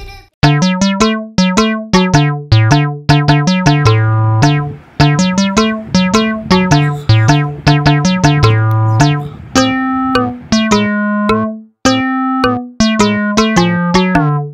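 Background music: an electronic keyboard tune of short, quickly fading notes over a bass line, with a brief break near the start and another near twelve seconds in.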